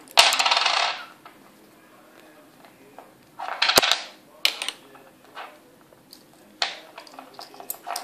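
A small hard object clattering and scraping on a desktop as a budgerigar picks it up, drags and drops it with its beak. There are two rattling bursts under a second long, the first at the very start and the second about three and a half seconds in, then a few scattered light clicks.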